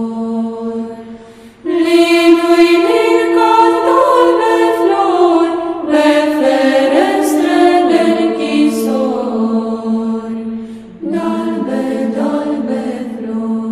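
Choir singing a Romanian colind (carol) in long phrases of slow, held notes, with brief lulls about a second and a half in and again about three seconds before the end.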